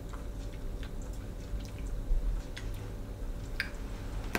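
Faint small clicks and mouth sounds of people eating ice cream off spoons, a few scattered ticks over a steady low room hum.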